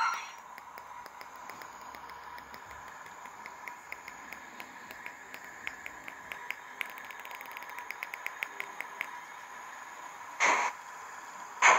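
Roco BR 01 HO-scale model steam locomotive with a Zimo sound decoder running: a faint steady whine under a light ticking that quickens, then stops about nine seconds in. Near the end come two short bursts of hiss.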